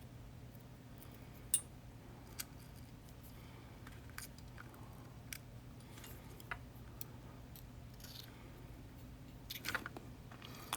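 Small, sharp metal clicks and taps, spaced irregularly, from tools and lock parts being handled while pins are worked out of a Yale 2000 Plus lock cylinder, with a quick cluster near the end.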